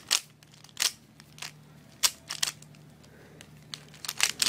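Plastic clicks and clacks of a Dayan Zhanchi 3x3 speed cube being turned by hand during a solve. They come irregularly, singly and in quick bunches, busiest near the end.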